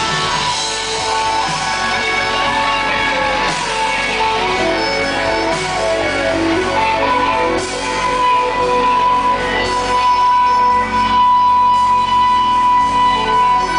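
Live rock band playing loud, with layered electric guitars; a single high note is held steadily from about halfway through.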